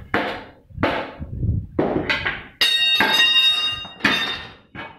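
Several dull thuds of a rubber mallet striking a steel tyre lever to work a motorbike tyre's bead off its rim. About two and a half seconds in comes a metal clang that rings on for about a second, then a couple more knocks as the bare wheel is handled.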